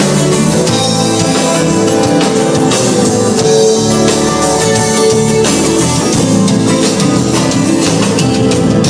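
Rock band playing live: an instrumental passage of guitar over a drum kit between sung verses.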